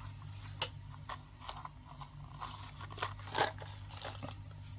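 Plastic packaging crinkling and small plastic pieces clicking as a mystery-ball toy is unwrapped by hand, in scattered short crackles and clicks, the loudest about three and a half seconds in.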